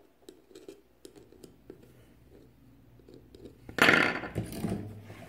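Soldering iron on the solder-pasted terminal of an 18650 lithium cell, with scattered faint crackling clicks. About four seconds in comes a louder, short rushing noise that fades within about a second.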